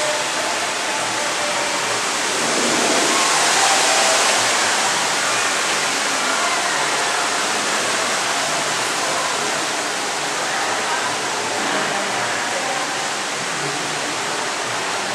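A steady rushing hiss with faint, indistinct voices underneath; it grows a little louder about three to five seconds in.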